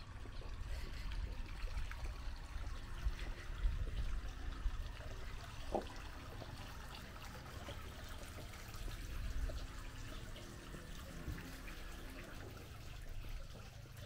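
Sea water lapping and trickling against the pier and the hulls of moored wooden boats, over a low uneven rumble, with a brief squeak about six seconds in.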